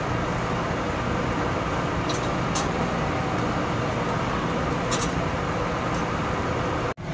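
Steady street traffic rumble, with a few light metal clinks as tongs handle charcoal and a wire grill grate: three sharp clinks, two about two seconds in and one about five seconds in.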